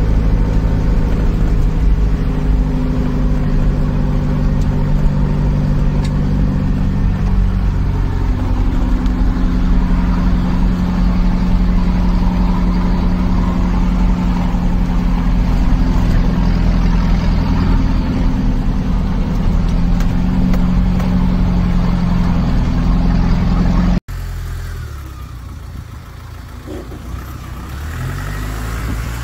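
Mahindra Jeep engine running steadily while driving, heard from inside the cab, its pitch shifting a few times as the speed changes. About three-quarters of the way through it cuts abruptly to a quieter vehicle engine that rises in pitch near the end, as a jeep pushes through a muddy stretch.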